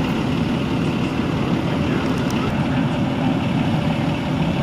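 A large vehicle engine idling with a steady low rumble.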